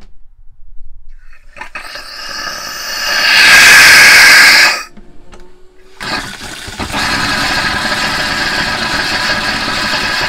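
Compressed air blowing the remaining water out of an RV's bathroom faucet line as the valve is opened, a spitting, hissing rush of air and water. It swells to a loud burst about three seconds in and cuts off near five seconds, then a steady hiss runs from about seven seconds on.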